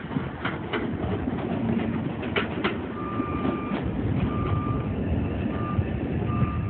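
MBTA Orange Line subway train running into the station with a steady low rumble and a few sharp knocks, then a high electronic beep repeating from about three seconds in.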